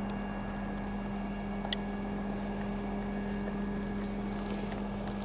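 Steady machine hum with an even low tone and one sharp click about a second and a half in.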